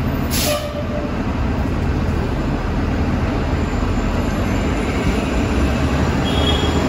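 Steady, loud rumble of a subway train running on the steel elevated structure overhead, mixed with idling buses and street traffic. There is a short hiss near the start.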